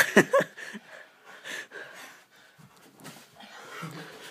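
Play-fighting in a small room: a sudden loud knock with a short falling yelp at the very start, then quieter scuffling and breathing with another brief burst about a second and a half in.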